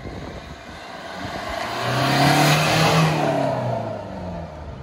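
A Maruti Suzuki Baleno's 1.3-litre four-cylinder diesel, breathing through a newly fitted loud aftermarket exhaust, driving past. The exhaust note swells as the car approaches, is loudest about two and a half seconds in, then drops in pitch and fades as it pulls away.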